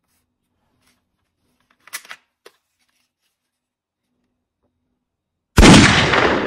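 A few small plastic clicks as a toy foam-dart rifle is loaded and handled, then, near the end, a single loud gunshot-like bang as the toy fires, dying away over about a second and a half.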